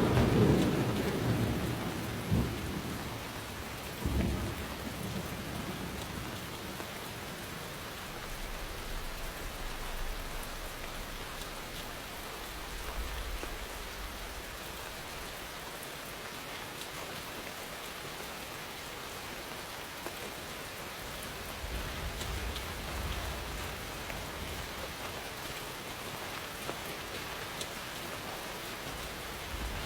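Steady rain with thunder: a loud rumble dying away over the first couple of seconds, a short clap about four seconds in, then softer, low distant rumbles that swell and fade a few times under the rain.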